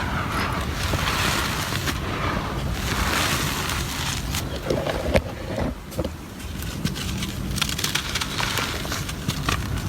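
Gritty cement crumbling, with a steady gritty crunch and scattered small cracks, a few sharper ones about five seconds in, then a brief quieter spell.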